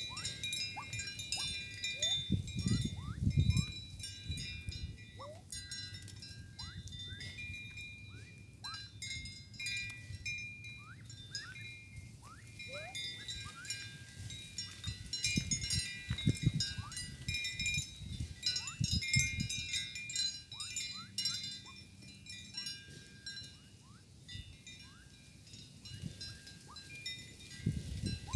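Dusky-legged guans pecking corn kernels from the grass close to the microphone, giving bunches of dull low knocks, over a steady background of many short, thin bird chirps and high steady tones.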